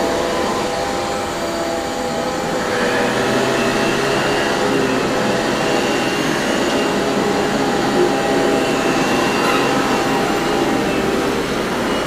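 Two upright vacuum cleaners running at once, giving a steady motor whine with several held tones; the pitch shifts slightly a few seconds in.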